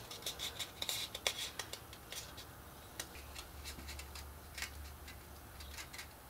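Lightweight chipboard, scored into lines, being rolled and flexed in the hands into a cone: soft rustling with scattered sharp crackles, which come thick in the first couple of seconds and then thin out.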